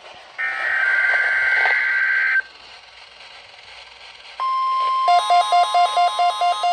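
NOAA Weather Radio weekly test signals: a two-second burst of buzzy, warbling SAME digital header data, then after a pause of radio hiss the steady 1050 Hz warning alarm tone starts. About a second later a weather radio receiver's alert sets off, beeping about four times a second over the tone.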